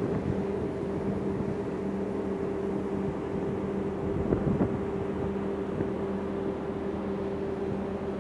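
Ferry engines running with a steady low hum, with wind noise on the microphone.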